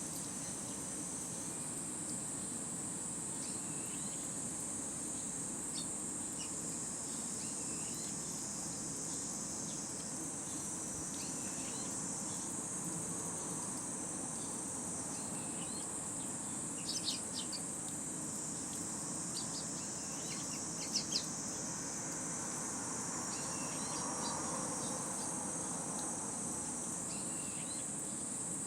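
Steady high-pitched insect drone, with short sparrow chirps scattered through it and louder clusters about a third of the way in and again a few seconds later.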